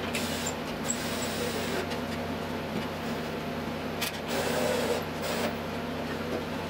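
Power drill/driver running in short spells, driving a wood screw down through the top panel into a wooden rib, over a steady low background hum.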